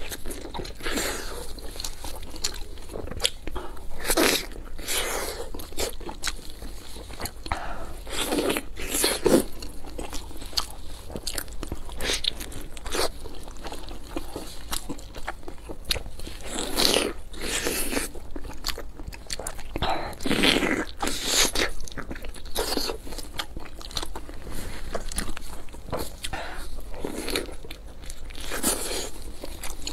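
A person biting into and chewing a fried dumpling, with irregular crunching bites and chewing noises throughout.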